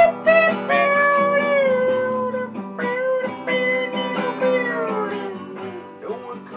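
Nylon-string classical guitar being played, with a voice singing held, sliding notes over it.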